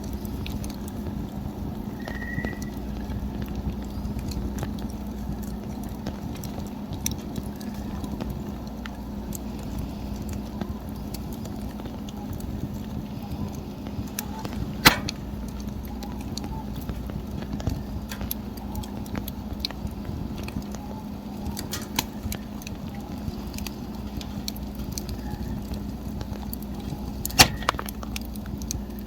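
Wood campfire burning with a steady low rush, scattered small crackles and two sharp loud pops, one about halfway through and one near the end.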